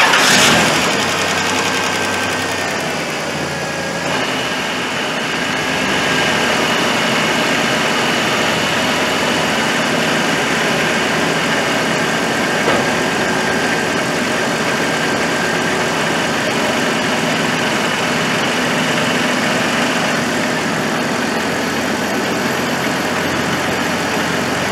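Car engine just started: loud for about the first second as it catches, then idling steadily with the A/C compressor running and pulling the low-side pressure down. A steady high whine joins about four seconds in and stops near twenty seconds.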